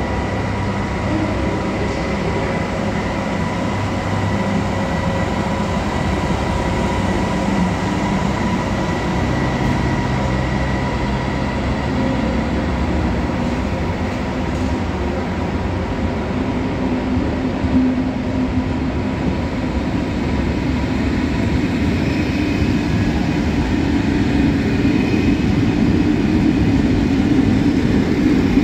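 Train running, a steady rumble with a thin high whine and a lower hum that grows louder over the last several seconds.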